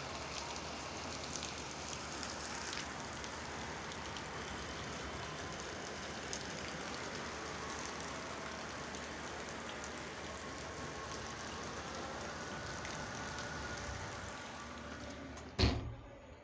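Fast-flowing floodwater rushing past in a steady noise. Near the end a single loud knock, after which the sound drops away.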